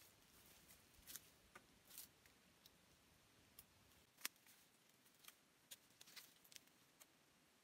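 Near silence broken by faint, scattered clicks and rustles of handling as a man works at a motorbike over dry leaf litter, with one sharper click a little past four seconds in.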